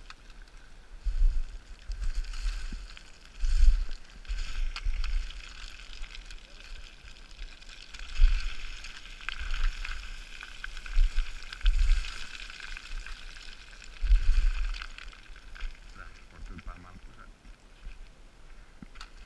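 Boots sliding and crunching down loose limestone scree, the gravel hissing and rattling with each step, with gusts of wind rumbling on the microphone every few seconds.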